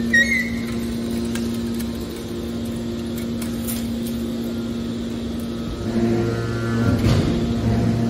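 Hydraulic scrap-metal baler running, a steady mechanical hum from its hydraulic power unit. About six seconds in the hum grows louder and deeper, with some rougher noise.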